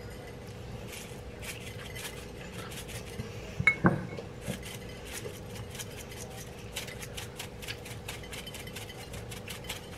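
Plastic shaker jar of everything bagel seasoning shaken over a plate, the dry seasoning rattling in a long run of quick light ticks through the second half. Two sharper knocks, the loudest sounds, come just before the shaking starts, about four seconds in.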